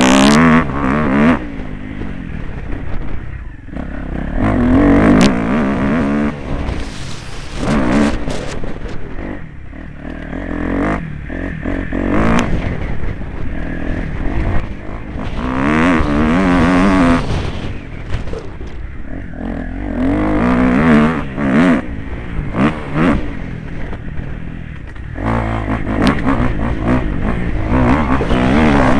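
Motocross bike engine heard on board, revving up and dropping back again and again under the rider's throttle.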